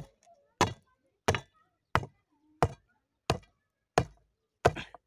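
A long bar ramming stones into the hole around a wooden fence post. It lands in steady, sharp thuds about every two-thirds of a second, packing the stones tight so the loose post sets firm.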